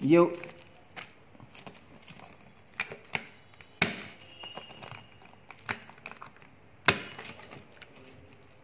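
Scattered sharp clicks and knocks, about half a dozen loud ones at uneven intervals, from a TSA combination lock on a hard-shell suitcase as its number wheels are turned to 000 and its reset is pressed.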